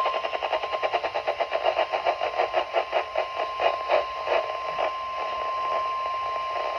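NOAA Weather Radio warning alarm tone: one steady, single-pitched tone near 1,050 Hz, sent to set off receivers before a tornado warning is read. Under it, for the first few seconds, is a rapid, uneven pulsing crackle of radio noise.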